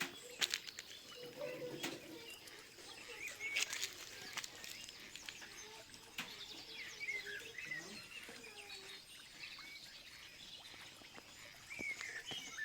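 Small birds chirping and calling, many short rising and falling chirps overlapping throughout. A few sharp clicks or knocks stand out, the loudest just after the start and about three and a half seconds in.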